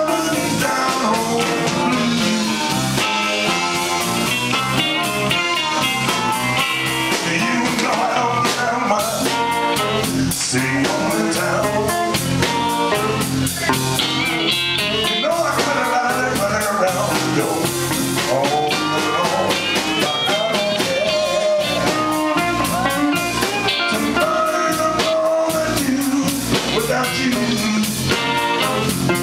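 Live electric blues band playing: electric guitars, electric bass and drum kit, with a singing voice and amplified blues harp (harmonica) over the top.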